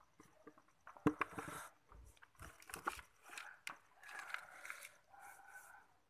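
Hands pressing and patting loose potting soil in a plastic pot: scratchy rustles and a few soft knocks, the sharpest about a second in.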